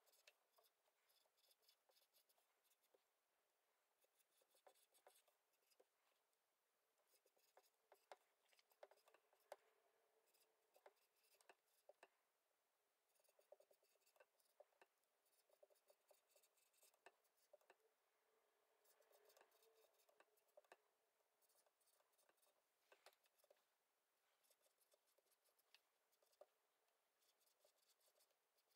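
Faint scratching, squeaking and tapping of a dry-wipe marker writing words on a small whiteboard, in short clusters of strokes with brief pauses between words.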